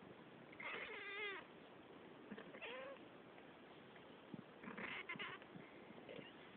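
Domestic cats meowing: three meows about two seconds apart, the first the longest.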